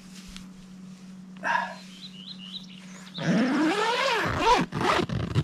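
A dog whining: a long wavering cry that rises and falls in pitch, starting about three seconds in and lasting about two seconds. A few short, high bird chirps come just before it.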